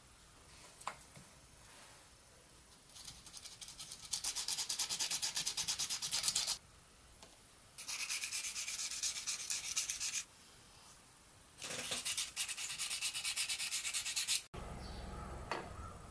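Sandpaper rubbed quickly back and forth over a carved chestnut wooden spoon, in three bouts of rapid strokes with short pauses between them. The rasping stops abruptly near the end.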